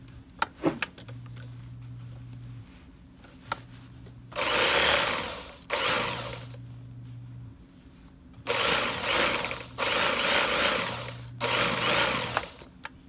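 Industrial sewing machine stitching fabric in about five short runs with brief pauses between them. A few sharp clicks come just before, in the first second.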